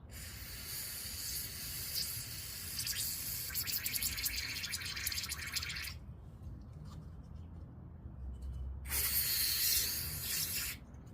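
Aerosol carburetor cleaner spraying into a carburetor float bowl. It gives a long hiss of about six seconds, stops, then a second shorter burst of about two seconds near the end.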